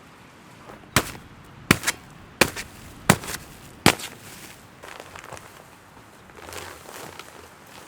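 A run of sharp, irregular knocks, about six of them between one and four seconds in, followed by fainter scraping and tapping.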